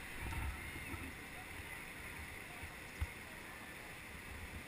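River water rushing over a weir chute, a steady hiss with low buffeting on the microphone and a single sharp knock about three seconds in.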